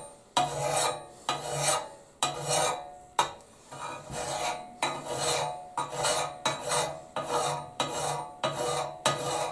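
Flat steel file rasping across the axe bit of a Pulaski held in a steel vise, sharpening the edge. The strokes are short and even, about two a second.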